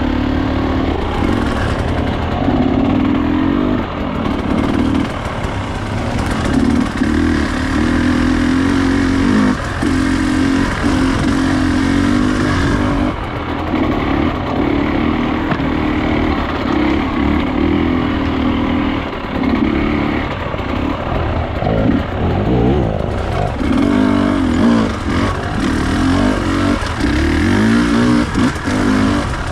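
Enduro dirt bike's engine running while riding off-road, its pitch rising and falling and dropping away briefly again and again as the throttle opens and closes.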